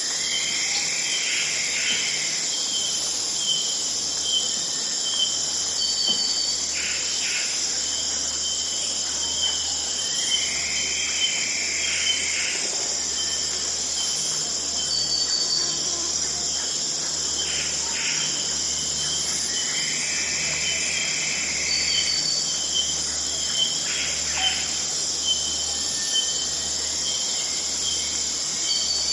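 Tropical rainforest dawn chorus: a dense, steady wall of high insect buzzing and chirping, with a short slurred call near 2 kHz recurring about every nine seconds and a few brief sharp calls between.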